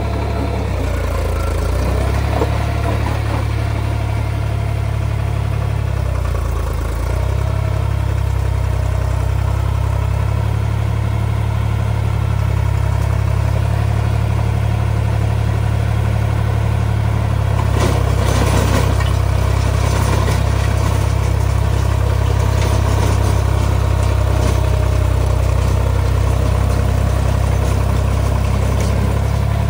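Deutz-Fahr 55 hp tractor's diesel engine running steadily under load, driving a rotary tiller that churns through weeds and soil. A short burst of crackling comes about two-thirds of the way through.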